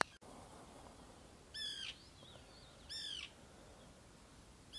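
Gulls calling: three harsh, downward-curving calls about a second and a half apart, the last near the end.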